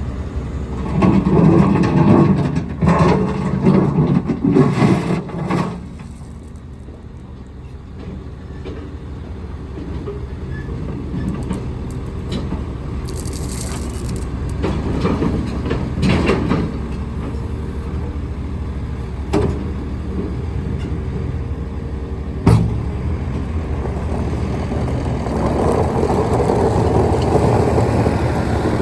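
Case SR270B skid steer loader's diesel engine running, with loud uneven surges in the first several seconds, then steadier and quieter. A single sharp knock comes a little past the middle, and the engine grows louder again near the end.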